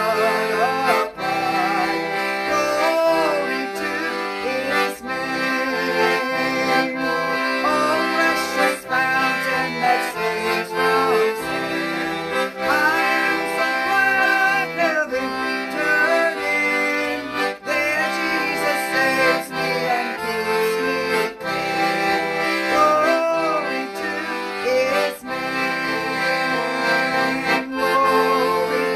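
Piano accordion playing a hymn tune, a melody over sustained chords, at a steady, moderate tempo.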